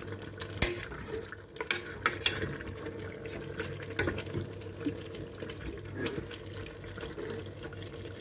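Lamb pieces frying with onion in oil in a steel pot, sizzling steadily, while a spatula stirs them, with scattered light knocks and scrapes against the pot. The meat is browning in its first frying stage.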